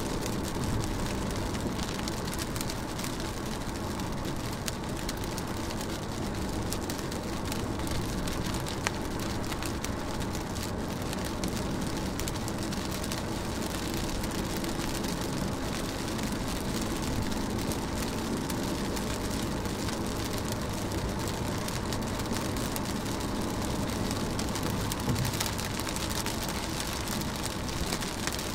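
Rain falling on a car's body and windshield: a steady, dense patter with scattered sharper drop hits.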